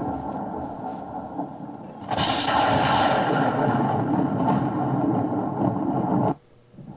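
Recorded thunder played from a DY-HV20T MP3 sound module. A low rumble is followed about two seconds in by a sudden loud clap that rolls on for about four seconds and then cuts off abruptly. Another thunder clap begins right at the end.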